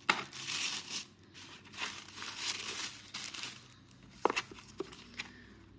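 Paper and packaging rustling and crinkling as a beauty box is unpacked, in a few bursts, followed by a few sharp taps near the end.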